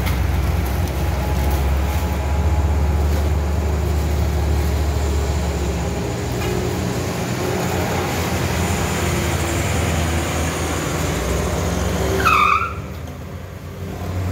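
Diesel trucks and other vehicles climbing a steep hairpin bend, their engines working under load with a heavy low drone. There is a short high squeal about two seconds before the end.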